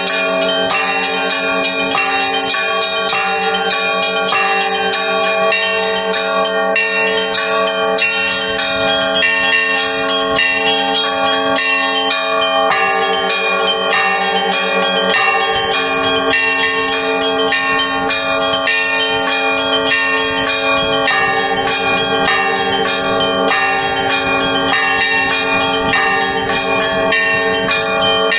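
Russian Orthodox church bells ringing in a continuous peal: many bells of different pitches struck in quick succession over the ringing of larger bells. The deepest tone drops out about halfway through.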